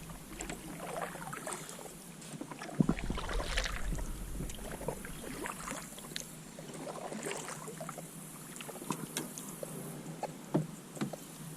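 A kayak being paddled: paddle strokes splashing in the water, with scattered knocks and taps on the hull, the sharpest about three seconds in.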